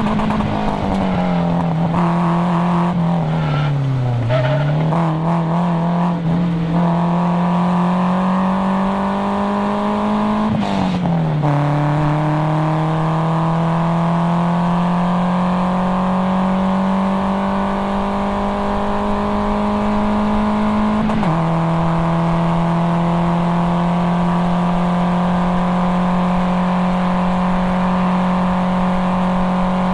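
Nissan 240SX's stock KA24DE 2.4-litre inline-four running hard under load through a cat-back exhaust. The revs dip to a low about four seconds in, then climb steadily, with an upshift and a sudden drop in revs about eleven seconds in and another about twenty-one seconds in.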